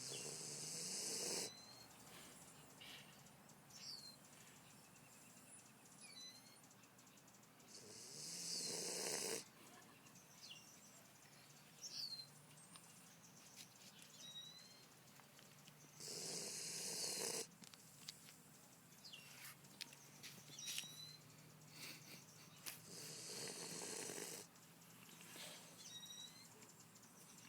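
A sleeping pet snoring: four long snores, each about a second and a half, coming about every seven to eight seconds.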